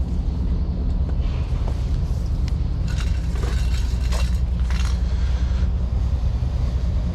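Vehicle engine idling steadily with an even low rumble, with a few short metallic clanks and rattles of tools being handled partway through.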